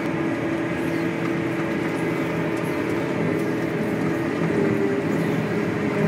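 Claas Jaguar 960 self-propelled forage harvester running steadily while working a swath of cut grass for silage, heard from inside the cab: a constant drone of engine and machinery with a few steady hum tones.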